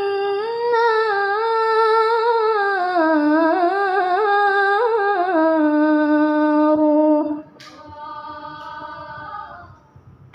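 Woman's voice in melodic Quran recitation (tilawah), amplified through a microphone, holding one long ornamented note that wavers up and down in pitch and then settles lower. A little over seven seconds in it drops sharply in level and carries on softly before trailing off, with a brief click just after the drop.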